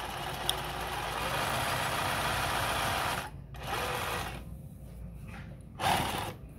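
Singer 20U83 industrial zigzag sewing machine running steadily, sewing a straight stitch through denim, then stopping abruptly about three seconds in. A brief louder knock follows near the end.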